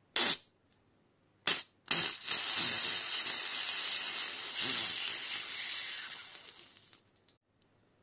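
Compressed air hissing out of a FOX Float fork's Schrader air valve as the valve core is pressed, bleeding the air chamber: two short puffs, then one long release of about five seconds that slowly fades as the pressure drops.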